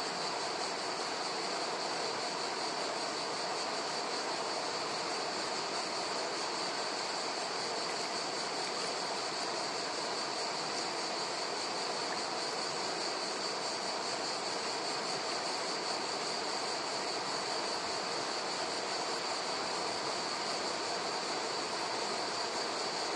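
Shallow river water rippling over pebbles right at the microphone: a steady, unbroken rush of water, with a steady high-pitched hiss above it.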